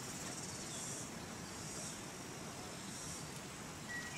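Insects chirping outdoors in a steady pulsing rhythm, with a high trill that swells about once a second over a faint steady hiss.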